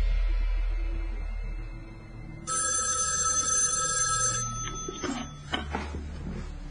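A telephone rings once for about two and a half seconds, then a few short clicks follow. Before the ring, a deep low rumble fades away.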